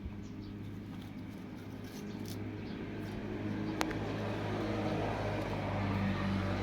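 A steady low mechanical hum that slowly grows louder, with one sharp click about four seconds in.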